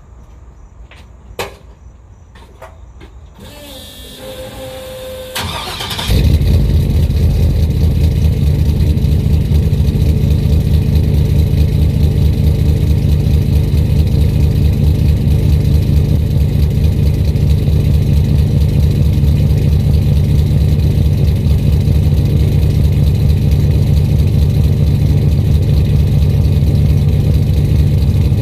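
Cold start of a turbocharged Gen 4 5.3 LS V8 with a BTR stage 2 turbo cam, breathing through a single 3.5-inch exhaust with a straight-through 4-inch diesel muffler. A click and a short rising whine come first; the engine fires about six seconds in and settles into a loud, steady cold idle.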